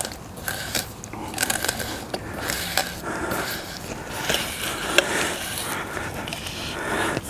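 Black plastic head being screwed by hand onto a deionizer resin tank: uneven scraping and clicking of the plastic threads and hands on the housing, with one sharp click about five seconds in.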